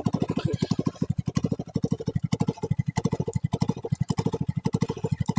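Small boat engine running steadily, with an even pulse of about eleven beats a second.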